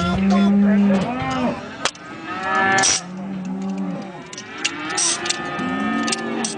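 Cattle mooing: several overlapping calls, the longest held steady for about a second, with a few sharp knocks in between.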